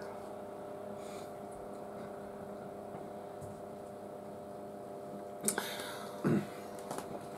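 Quiet room with a steady electrical hum; about five and a half seconds in, a fork clinks against a plate as spaghetti is lifted, followed by a short soft knock.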